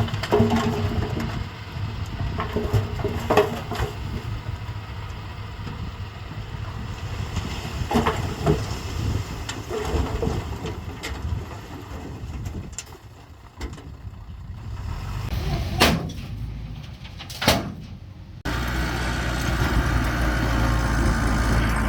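Bulldozer's diesel engine running at work, with a number of sharp metallic clanks scattered through. About three-quarters of the way through, the sound jumps suddenly to a louder, steady engine drone.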